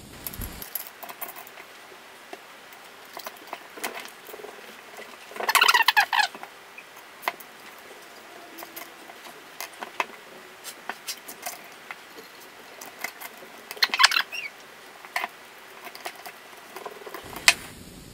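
Hands fitting a gimbal plate onto quadcopter landing-gear legs: scattered small clicks, taps and rattles of the plate, frame and small parts, with two louder bursts of rattling about five and a half seconds in and again near fourteen seconds.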